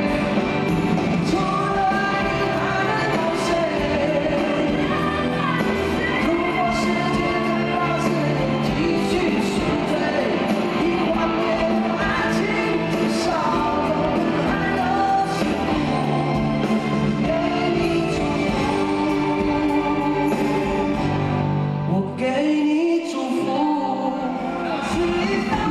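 Live pop-rock song: male voices singing over acoustic and electric guitars and a full band. Near the end the bass drops out for about two seconds, then the band comes back in.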